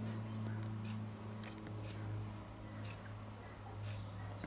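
Steady low electrical hum with a few faint, light clicks scattered through it.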